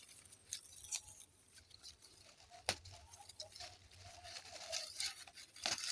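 Faint rustling and light crackles of leaves and stems being handled, with one sharper snap about two and a half seconds in.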